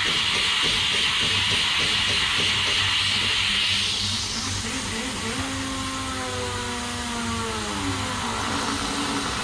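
DeLaval VMS teat-cleaning cup hissing as it sprays onto a cow's teats during manual teat prep, cutting off about four seconds in. A low hum runs steadily underneath, and in the second half a drawn-out pitched tone holds for a few seconds and then slowly falls.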